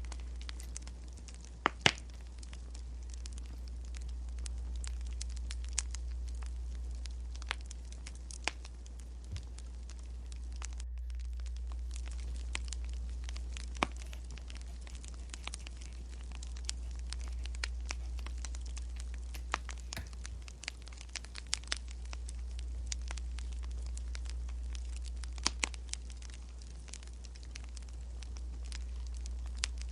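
Wood fire crackling: sharp, irregular pops and snaps, a couple of louder ones about two seconds in, over a steady low hum.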